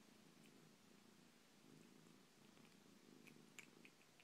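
Domestic cat purring faintly and steadily, with a few faint clicks near the end.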